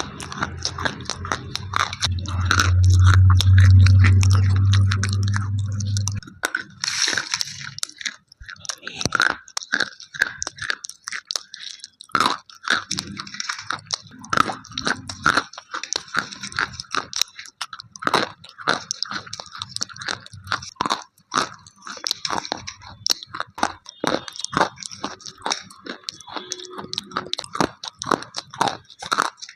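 Slate pencils being bitten and chewed close to the microphone: dense, dry, crisp crunches throughout. For about the first six seconds a loud low hum sits beneath the crunching, then stops.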